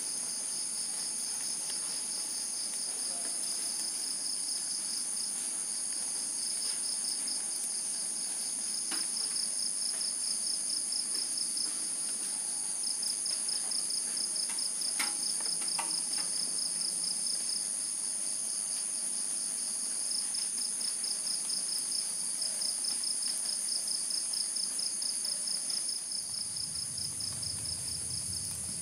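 Night insect chorus of crickets calling at once: a steady high trill over a faster pulsing one, without a break. A few faint clinks, like a metal spoon against a steel mug, sound around the middle.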